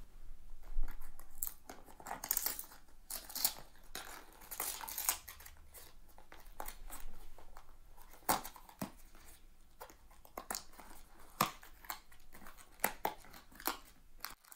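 A small paperboard blind box being pried open by hand: cardboard flaps scraping and rustling, with scattered sharp clicks as the tabs pop free. Near the end the foil pouch inside rustles under the fingers.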